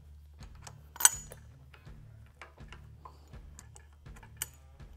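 Small metal parts clicking and clinking as handlebar riser hardware is handled and set in place, with the sharpest clink about a second in and another near the end, over a faint steady low hum.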